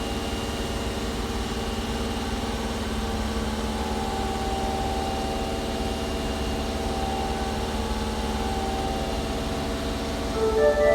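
Osaka Metro 22 series subway train's steady mechanical hum with several held tones. About ten seconds in, its horn starts sounding louder in several tones at once; this set's horn is known for an abnormal sound.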